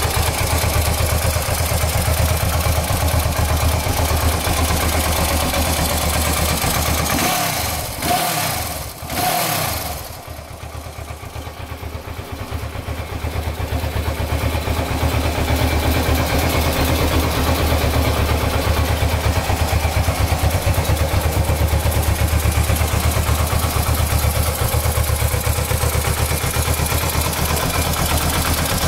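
Laverda Diamante's parallel-twin engine idling steadily, with a few quick blips of the throttle about eight seconds in, after which the idle dips and settles back.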